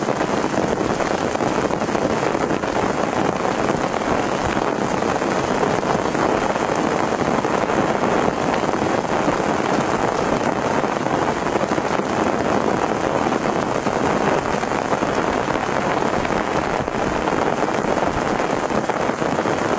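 Heavy rain pouring down in a steady, dense hiss that does not let up.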